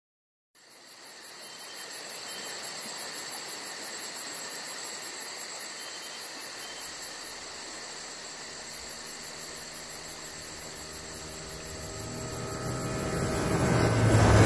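Insects chirping, with a fast, evenly pulsing high chirp like crickets over a steady hiss. In the last two seconds a low rumble swells in and grows loud.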